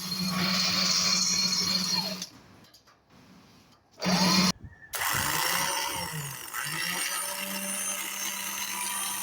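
Evinrude 175 V6 two-stroke outboard motor whirring steadily. It falls away about two seconds in, gives a short loud burst near the middle, then picks up again and wavers before settling. This is the uneven starting and running of a motor that is hard to start and misfiring.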